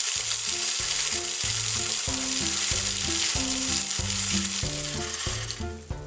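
Corn feeder's motor-driven spinner flinging corn through the leaves: a loud, even hiss that starts suddenly and cuts off near the end. Background music with a steady bass line plays underneath.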